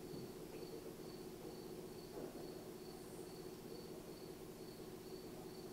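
Faint room tone: a steady low hum under a thin, high chirping tone that pulses evenly, about four times a second.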